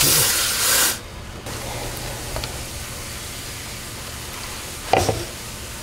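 Tap water running into a stainless steel colander of small squid being rinsed by hand, loud for about the first second, then quieter, with a short thump near the end.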